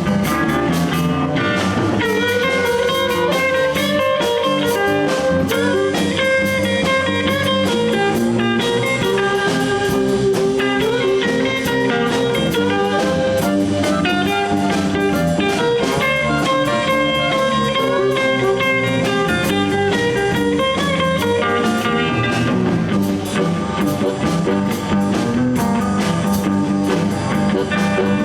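Live blues band playing an instrumental stretch: electric guitar over bass and drum kit, steady and loud with no singing.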